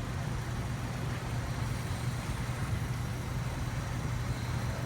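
Car engine idling with a misfire from a cylinder whose fuel injector is not working.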